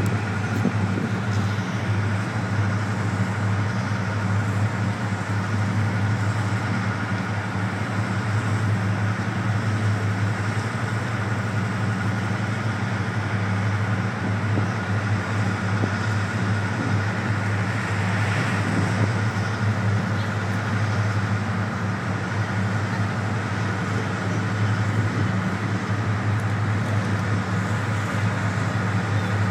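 Napier Deltic 18-cylinder opposed-piston two-stroke diesel engines of five Class 55 Deltic locomotives running together at idle, a steady low drone.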